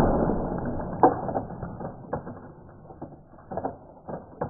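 A paintball bursting an egg on a wooden stake; the noise of the hit and splatter dies away over about two seconds. A sharp click follows about a second in, then a scattering of lighter clicks and knocks.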